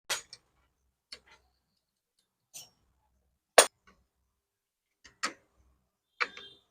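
Sharp metal clicks and clinks from a hand tool working the bolts on a motorcycle engine's clutch-side housing as they are tightened. Six separate clicks at irregular intervals of about a second, the loudest a little past the middle.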